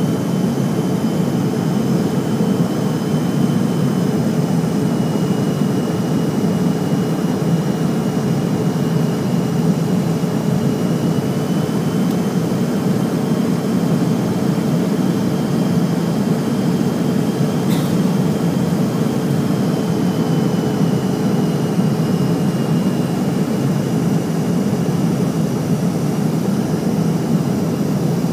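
Steady cabin noise inside an MD-80 airliner on final approach: a low rush of airflow and engine noise from its rear-mounted Pratt & Whitney JT8D turbofans, with a faint high steady whine running through it. A single brief click comes about two-thirds of the way through.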